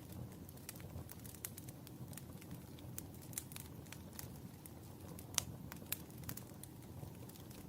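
Wood fire crackling in a fireplace: irregular sharp pops and snaps over a low steady rumble of the burning, with the loudest pop about five and a half seconds in.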